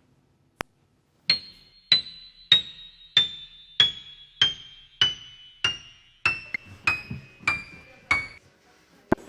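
A single click, then a descending run of about twelve bright, chime-like struck notes, one roughly every 0.6 seconds. Each note rings briefly and sits a step lower in pitch than the one before.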